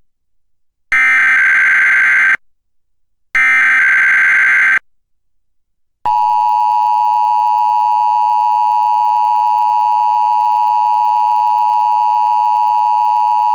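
Emergency Alert System SAME header data bursts: two harsh digital screeches, each about a second and a half long, about a second apart. About six seconds in, the steady EAS two-tone attention signal begins and holds. Together they mark the start of an EAS Required Weekly Test.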